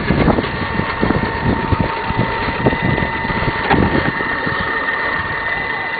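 Electric scale RC rock crawler trucks crawling over rocks close by: a steady motor whine with irregular knocks and scrapes as tyres and chassis work over the rock.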